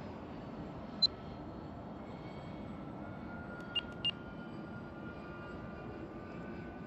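Steady in-flight drone of a B-24 Liberator's four radial engines. Three short high beeps cut through it, one about a second in and two in quick succession around four seconds in.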